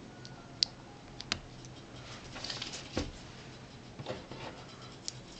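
Small plastic Lego pieces clicking and tapping as they are handled and pressed together: a few sharp, separate clicks with soft rustling between them.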